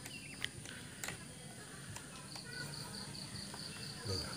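Quiet outdoor background with a cricket chirping in rapid, regular pulses, about six a second, stronger again from about halfway through. A couple of faint clicks in the first second come from a screwdriver working the adjusting screws of a stopped chainsaw's carburettor.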